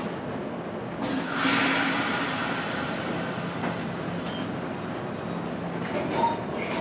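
NJ Transit Multilevel commuter train standing at the platform with a steady hum. About a second in, a sudden loud hiss of released air starts and fades away over the next couple of seconds.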